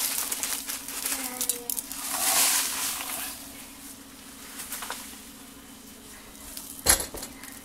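Dry stuffing crumbs pouring from a pouch and pattering onto raw chicken breasts in a crock pot for the first three seconds or so, then a faint steady hum and a single sharp knock near the end.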